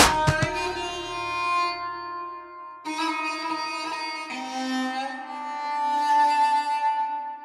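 Instrumental background music: slow, sustained string-like chords, with a new chord swelling in about three seconds in and another about a second later.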